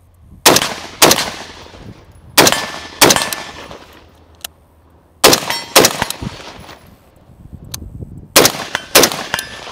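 Bravo Company RECCE AR-15 rifle fired semi-automatically in quick pairs: eight loud shots in four pairs, the two shots of each pair about half a second apart and the pairs a couple of seconds apart. Each shot is followed by a short echo.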